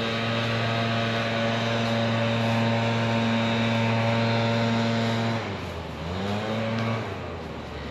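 An engine running at a steady high pitch. About five and a half seconds in its pitch sags and climbs back, and near the end it drops away to a lower level.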